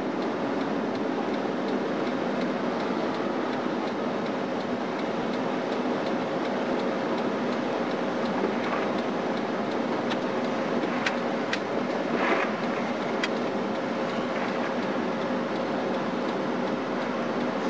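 Steady road and engine noise heard inside a moving car's cabin, with a constant low hum and a few faint ticks between about ten and thirteen seconds in.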